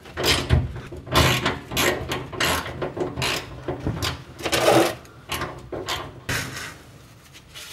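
Socket ratchet worked back and forth on the fuel tank's drain plug, a short rasping burst of clicks on each swing, irregularly spaced and fading near the end.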